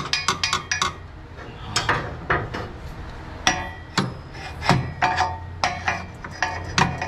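A hammer striking metal again and again, irregular ringing taps with some quick runs, to drive a stuck bolt out of a car's rear suspension.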